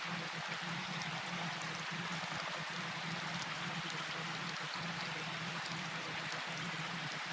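Steady rainfall, an even hiss with faint scattered drop ticks, over a steady low hum.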